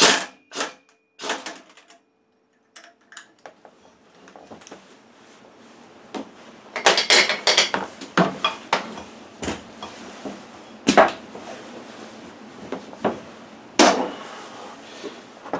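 Pneumatic impact wrench hammering briefly on the 1 1/8-inch flywheel nut of a Kohler K440-2AS snowmobile engine in a few short bursts to break it loose. After a short silence, a low steady hiss with scattered metal clanks and clatter.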